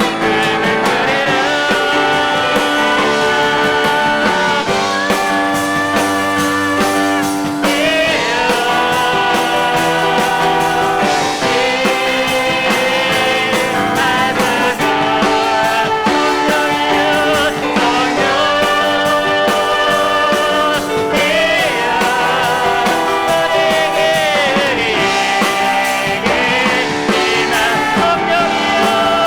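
Live worship music: vocalists singing a praise song over piano and drums.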